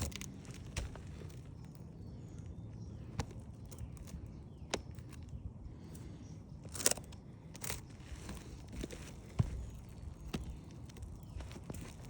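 Scattered light taps, scuffs and scrapes on asphalt roof shingles, with two short, louder scrapes about seven seconds in.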